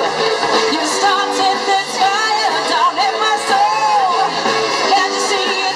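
Live band playing a pop song through a PA system, with a singer's amplified voice over guitar, bass and drums.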